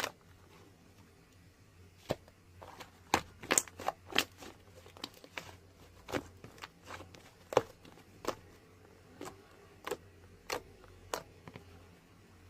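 About twenty light, sharp clicks and taps at irregular intervals, starting about two seconds in, over a faint low hum.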